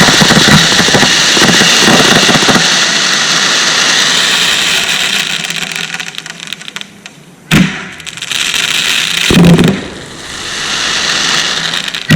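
Consumer fireworks going off: dense, loud crackling that dies away over the first six seconds or so. Then a single sharp bang comes about two-thirds of the way in, a deeper boom follows, and another bang lands right at the end.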